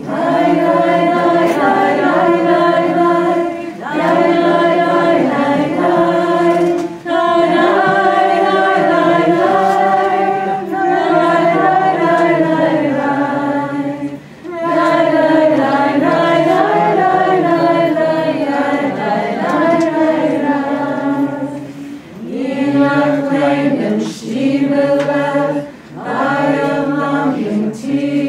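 A group of voices singing a song together, without instruments, in phrases of a few seconds broken by short pauses for breath.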